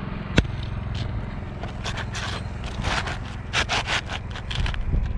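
Asphalt roofing shingle being slid by hand into place under the shingles above, its gritty surface scraping against them in several short scrapes in the second half; a single sharp click comes about half a second in, over a steady low rumble.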